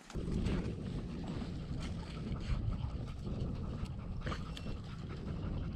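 Wind buffeting the microphone, a steady low rumble, with a few faint clicks on top.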